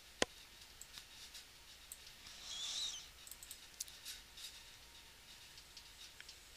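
Computer mouse clicks: one sharp click about a quarter second in, then several fainter clicks, with a short breathy hiss near the middle.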